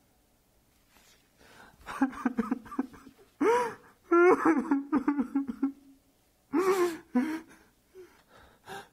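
Wordless vocal sounds from a person, gasping and laughing in several short bursts with pauses between them. The loudest burst comes about four to five seconds in.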